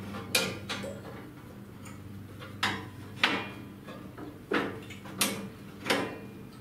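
Metal clanks and clicks from a steel brush guard being fitted back onto the front of a lawn tractor: about seven sharp knocks, a few seconds apart or in quick pairs, over a steady low hum.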